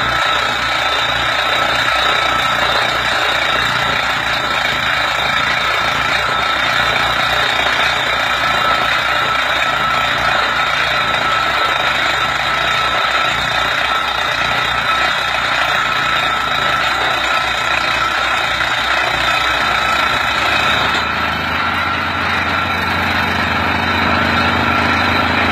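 Tractor-mounted water well drilling rig at work: the tractor engine runs steadily, powering the rig's hydraulics through the PTO, under a dense mechanical din with a fast, steady rattle. Near the end the high hiss drops away and a lower engine hum comes up.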